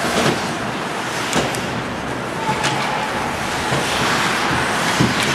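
Ice hockey play heard from behind the rink glass: a steady wash of skates scraping the ice and rink noise, broken by a few sharp clacks of sticks and puck.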